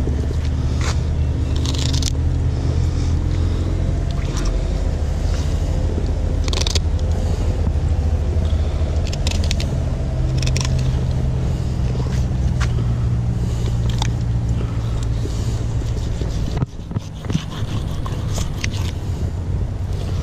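A steady low engine drone runs throughout, with scattered scrapes and clicks from a fillet knife cutting a tripletail's fillet off the rib cage on a cleaning board.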